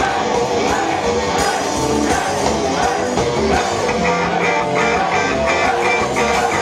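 Live rock band playing a song, with electric guitar and singing over a full band; a quick repeated high riff comes in about four seconds in.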